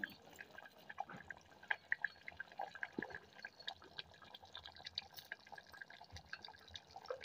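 Aloo gosht curry simmering in a clay pot: faint, irregular bubbling with small pops and blips.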